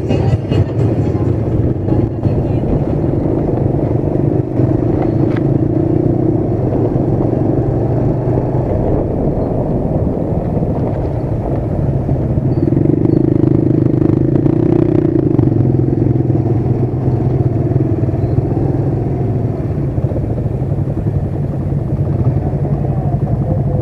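Motorcycle engine running as the bike is ridden along a rough dirt track, heard on board with road rumble. The engine note grows louder for a few seconds past the middle, then settles back.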